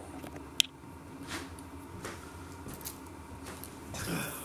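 Quiet room with small handling noises: one sharp click about half a second in, then a few soft rustles as a person moves about.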